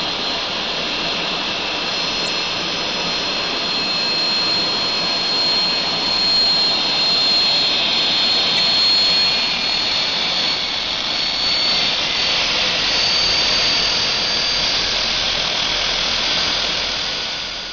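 Home-built turbocharger jet engine running steadily: a rushing roar with a high, steady whine from the spinning turbo.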